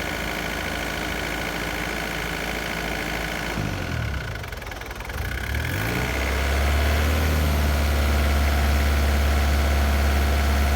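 Bulldozer's diesel engine running just after a cold start. About four seconds in its speed sags and then picks back up, settling into a louder, deeper steady run.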